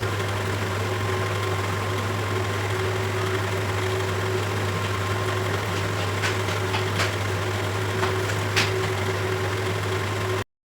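Steady low electric hum of a running appliance motor, with a few faint clicks in the second half.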